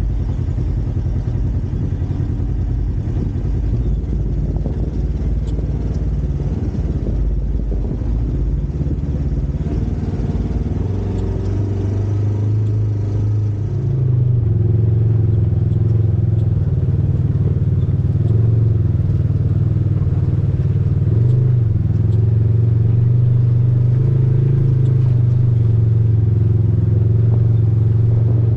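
Off-road vehicle engine running while driving, its pitch rising and falling with the throttle. About halfway through the sound changes abruptly to a louder, steadier drone.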